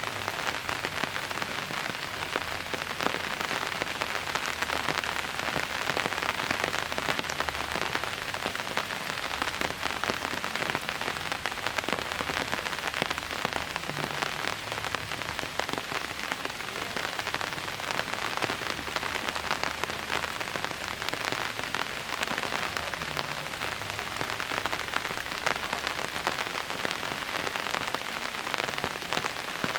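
Steady rain falling, a dense, even patter of drops on a surface with no let-up.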